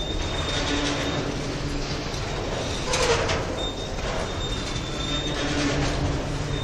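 Empty freight hopper wagons rolling past close by: a steady rumble of steel wheels on rail, with a thin high wheel squeal that comes and goes. A louder clank comes about three seconds in.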